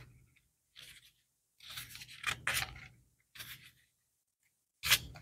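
Paper pages of a book being leafed through: several short rustles, with a sharper page flick near the end.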